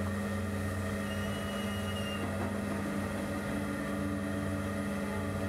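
Steady low hum of ship machinery, with a few fixed tones and no change in pitch; a faint high whistle sounds briefly about a second in.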